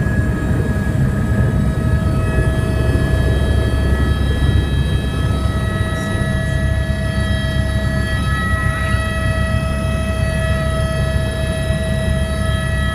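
Helicopter in flight: a steady low rumble with several steady high whining tones held throughout.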